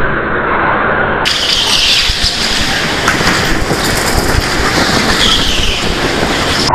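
Go-kart running on a track: a loud, steady, noisy rumble and rattle of the kart's motor, tyres and chassis.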